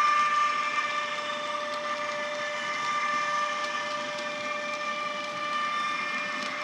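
Sound of a BR 185 electric locomotive from a model's ESU LokSound 5 decoder, played through its upgraded speaker: a steady electric traction whine of several held tones. Under it, a light rolling rumble of the model wagons on the track.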